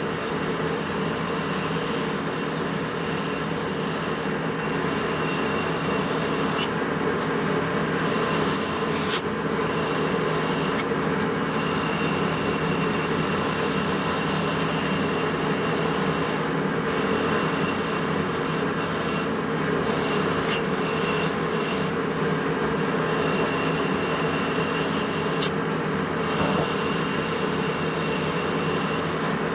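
A power tool abrading metal runs continuously, a steady rubbing, grinding noise with a thin high whine. Its upper edge drops away briefly every few seconds, as the tool eases off the workpiece.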